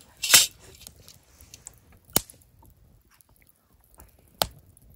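Wood campfire popping: a short crackling burst near the start, then two sharp single pops about two seconds apart.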